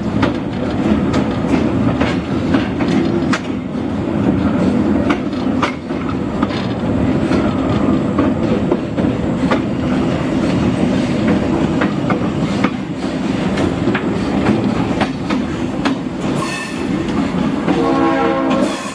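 Caboose rolling along jointed track, with a steady wheel rumble and wheels clicking over the rail joints. A brief pitched tone sounds near the end.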